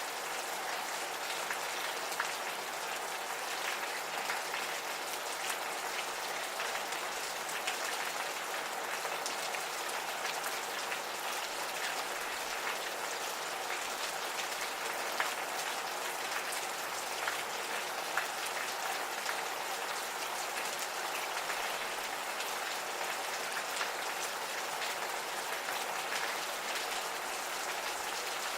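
Gentle rain falling steadily, a constant patter with many individual drops ticking close by.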